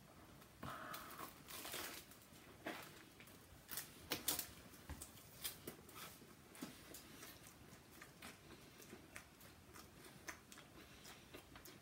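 Faint, irregular eating sounds: a person chewing with scattered small clicks, crackles and mouth noises.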